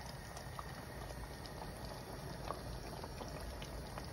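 Faint bubbling of hot tomato sauce around meatballs in a metal roasting tin fresh from the oven, with a few small pops here and there.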